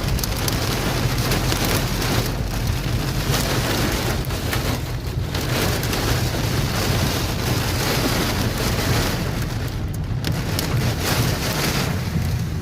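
Heavy rain pouring down in a storm with strong gusting wind: a dense, steady rush that swells and eases every few seconds.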